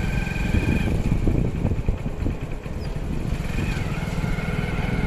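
A small two-wheeler's engine running steadily while riding, with wind rumbling on the phone's microphone.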